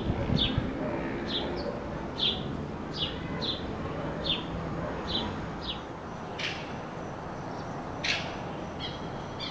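Small birds chirping: a short falling chirp repeated roughly once a second. About two thirds of the way through it changes to a few sharper, more widely spaced calls over a low steady background hiss.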